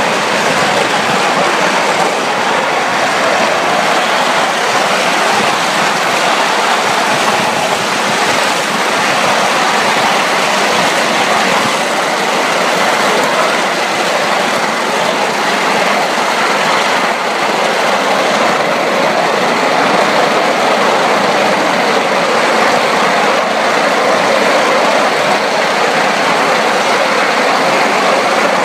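Ride-on, coal-fired live-steam scale Atlantic locomotive and its train running steadily along the track at speed: a continuous, even rushing noise of the moving train, with no separate beats standing out.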